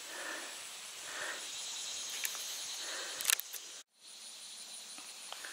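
Outdoor background with a steady hiss and camera-handling noise: a few small clicks and a sharper knock a little after three seconds in. The sound drops out for a moment at an edit just before four seconds.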